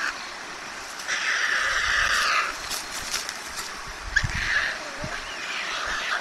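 White stork chicks in the nest giving hoarse, raspy begging calls in two noisy bouts, the first and longest about a second in. A flurry of wing-flapping comes about four seconds in.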